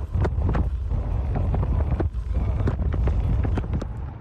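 Strong wind buffeting the microphone outdoors: a loud, low rumble broken by frequent short crackles and pops.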